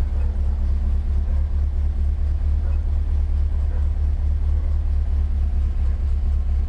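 Air-cooled Volkswagen flat-four engine idling steadily.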